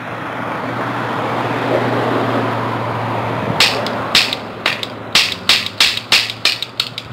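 A toy cap pistol being fired as fast as the trigger can be pulled: a rapid, uneven run of sharp snapping clicks, several a second, starting about three and a half seconds in and growing weaker toward the end. Before them is a swelling rush of noise.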